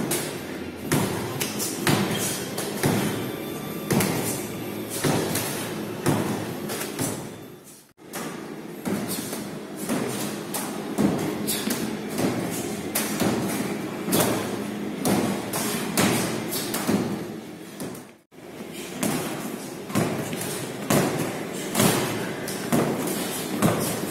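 Medicine balls thrown and caught in a boxing-gym conditioning drill, making repeated heavy thumps about one or two a second. The sound breaks off briefly twice.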